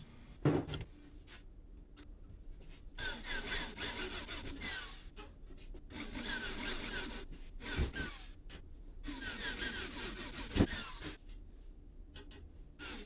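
Electric drill boring out spot welds in a steel windscreen frame, cutting in several short runs with brief pauses between. A single knock comes about half a second in, with a couple more sharp knocks later.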